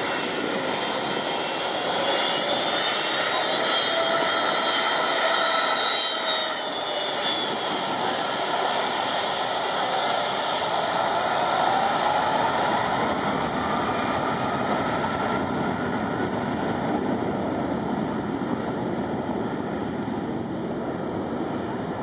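Boeing 757-200's Rolls-Royce RB211 turbofan engines at takeoff thrust, heard from behind: a loud, steady rush of jet blast with whining engine tones that slide up and down. The hiss grows thinner from about halfway through as the airliner rolls away down the runway.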